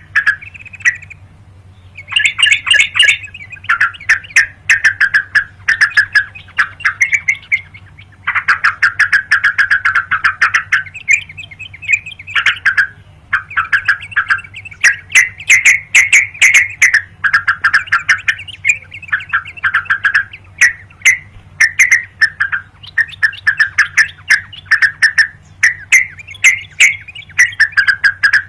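Yellow-vented bulbul (crucukan) singing vigorously: loud, bubbly chattering phrases one after another, with brief pauses about a second in and about eight seconds in. A faint steady low hum runs underneath.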